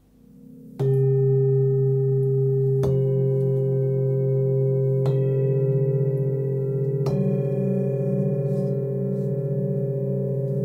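Singing bowls struck one after another, four strikes about two seconds apart. Each strike rings on and overlaps the others in a sustained, slowly wavering ring.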